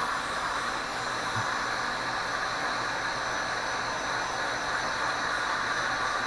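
Heat gun running steadily, an even hot-air fan hiss, as it shrinks heat-shrink tubing over the soldered motor connector.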